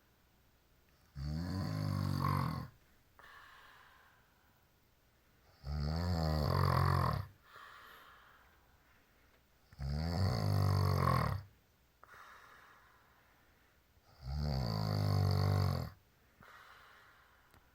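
Loud snoring: four long, deep snores about four seconds apart, each followed by a quieter breath out.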